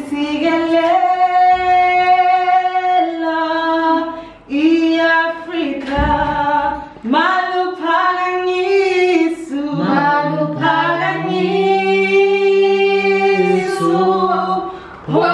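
A woman singing unaccompanied in long, held notes, improvising her own words. A lower voice joins in about ten seconds in.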